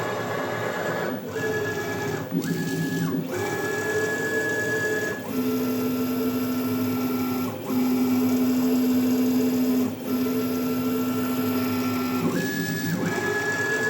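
Stepper motors of a 6040 CNC machine whining as the axes travel. The pitch jumps to a new steady note every one to three seconds as each move changes speed or axis, with short pauses between moves.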